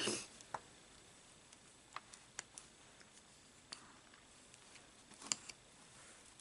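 Faint, scattered clicks of a latch hook tool, its latch snapping as yarn pieces are hooked through the rug canvas, five or six clicks a second or so apart.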